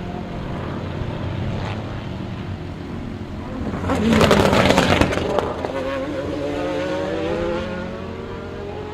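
Race cars at speed through a corner. One car passes close and loud about four to five seconds in, with a crackling exhaust, and other cars' engines are heard before and after it.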